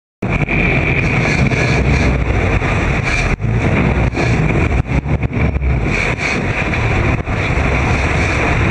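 Sportfishing boat's engines running under a loud rush of churning, splashing water at the stern, with wind buffeting the microphone. It cuts in suddenly just after the start.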